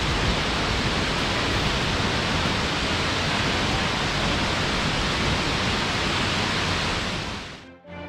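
Steady rushing roar of a waterfall about 30 m high plunging into its pool, fading out near the end.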